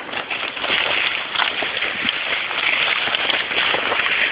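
Rain pattering on leaves: a dense, steady patter of many small drops, louder from about half a second in.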